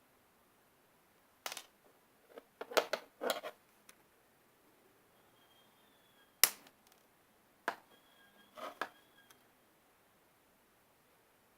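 Short, sharp clicks and knocks of a squishy toy and the tool cutting it being handled, about eight in all. There is a cluster around two to three seconds in, then single ones later, with faint silence between.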